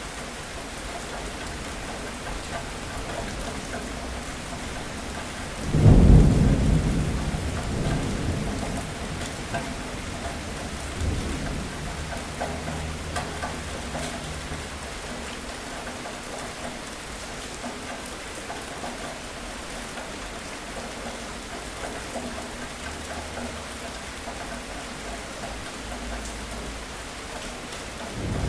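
Steady heavy rain falling, with a sudden clap of thunder about six seconds in that rumbles off over several seconds, a lighter rumble a few seconds later, and another thunderclap breaking right at the end.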